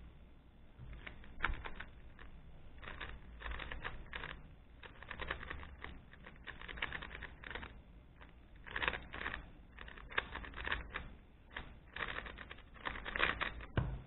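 Rubik's Speedcube (made by Rubik's and GAN) turned fast during a speedsolve: bursts of rapid plastic clacking turns with short pauses between, a blocky, pretty loud turning sound. A thump comes near the end.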